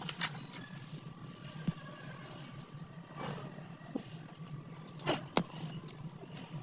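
Scattered sharp knocks and clinks of repair work, about six in a few seconds, over a steady low hum.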